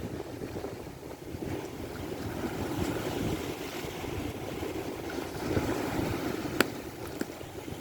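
Strong wind buffeting the microphone over waves lapping on the water, with one sharp knock about two-thirds of the way through.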